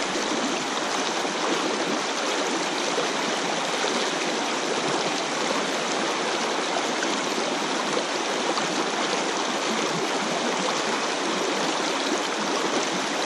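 Fast water of a shallow, rocky river riffle rushing steadily.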